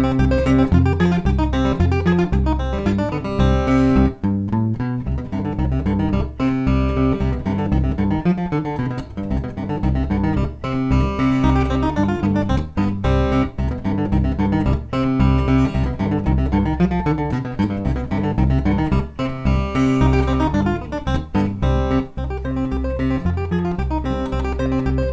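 Solo steel-string acoustic guitar played fingerstyle: a quick plucked melody over repeating bass notes, with sharp note attacks throughout.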